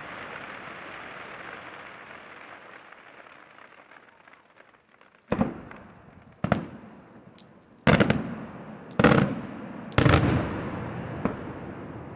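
Senatore Fireworks aerial shells bursting in the sky: five sharp bangs about a second apart, each with a fading echo, and a smaller pop after them. Before the bangs, a hiss from earlier bursts dies away.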